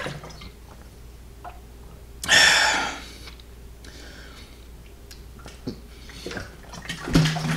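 Quiet gulping and swallowing of water drunk from a large plastic water jug, with one loud breathy rush of noise lasting under a second, about two seconds in.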